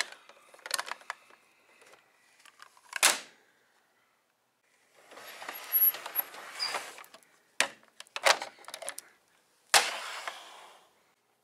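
Plastic action figures and toy trucks being handled and knocked together: a series of sharp clacks and knocks, with a stretch of scraping and rustling about five to seven seconds in.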